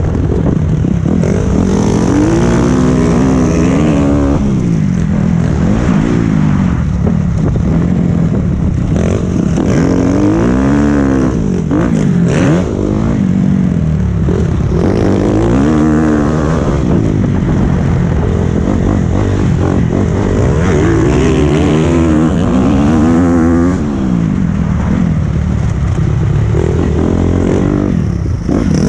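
Honda 250 four-stroke motocross bike engine under way, heard close up from the rider's helmet camera. It revs up and falls back several times as the throttle opens and closes.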